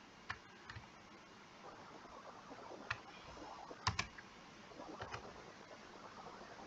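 A few faint, scattered clicks of a computer mouse and keyboard, the loudest a quick double click about four seconds in.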